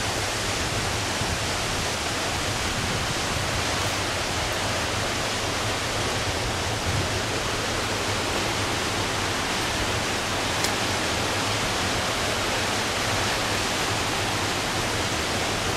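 Steady, unbroken rush of falling water from a waterfall about 50 metres high.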